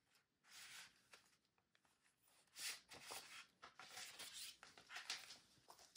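Faint rustling and brushing of paper as the pages of a CD digipack are turned and folded open by hand: a soft swish about half a second in, another near three seconds, then a string of light brushes.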